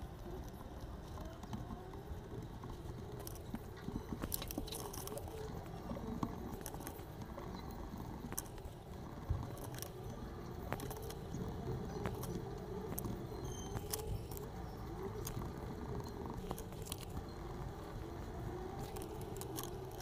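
Scattered small clicks and taps of colored pencils and a spiral sketchbook being handled, over a steady low background noise.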